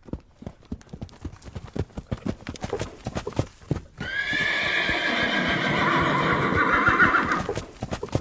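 Horse hooves clip-clopping in a quick, even rhythm, then a long horse whinny from about four seconds in that lasts some three and a half seconds before the hoofbeats carry on alone.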